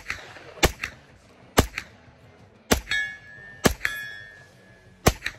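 Grand Power Stribog 9mm carbine fired six times in slow, uneven single shots, each report followed a split second later by a fainter smack downrange. After two of the shots, about three and four seconds in, a hit steel target rings clearly.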